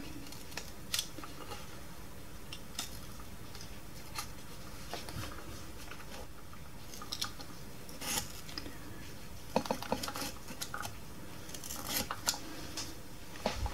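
Light, irregular clicks and scrapes of hands and a small metal tool working at a plush toy's fur and body as it is peeled back, over a faint steady hiss.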